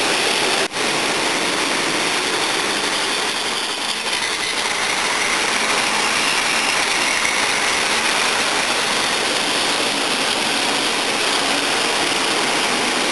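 Several Plarail battery-powered toy trains running on plastic track: a steady dense whirring of their small motors and gearboxes with the rattle of wheels on the plastic rails. The sound briefly drops out under a second in.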